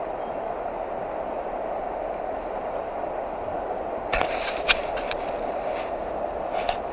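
Steady rush of flowing river water around a wading angler. A brief cluster of sharp clicks and knocks about four seconds in, and another near the end.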